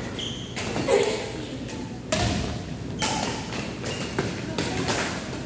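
Badminton rackets striking a shuttlecock back and forth in a doubles rally: several sharp hits, roughly a second apart.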